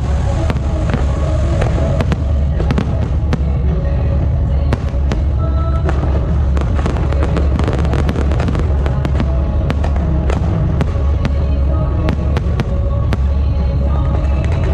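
Fireworks and firecrackers going off in a dense, irregular string of sharp cracks and bangs, over loud music.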